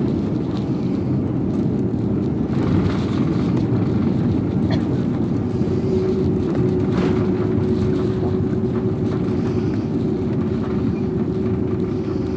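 Jet airliner engine and airflow noise heard inside the cabin during landing: a loud, steady low rumble, joined about halfway through by a steady hum.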